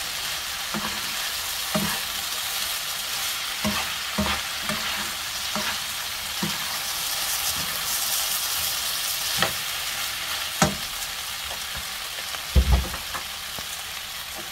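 Shredded potatoes and carrots sizzling in oil in a frying pan while being stir-fried with a metal spoon, which clicks and scrapes against the pan now and then. A heavier knock comes near the end.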